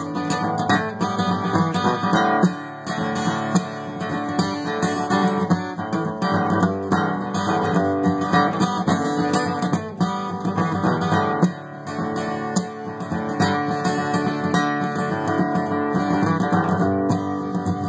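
Solo acoustic guitar, strummed and picked, playing an instrumental break in a country song.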